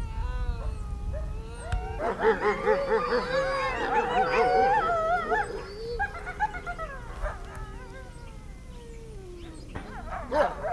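Several gray wolves whining, yipping and howling at once, many overlapping wavering calls that swell about two seconds in, thin out past the middle and rise again near the end. These are the excited calls of a pack crowding around one wolf lying on the ground.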